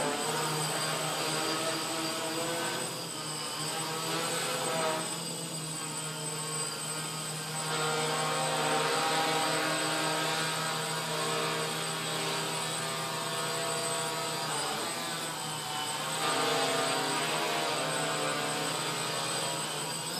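Quadcopter's brushless motors and propellers whining as it hovers, the pitch shifting up and down as the throttle is worked.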